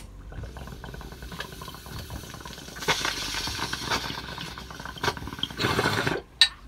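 A lighter clicks, then the water in a glass bong bubbles steadily as smoke is pulled through it, growing louder about three seconds in. Near the end the bowl is pulled to clear the chamber, with a louder rush of bubbling air, followed by a sharp click.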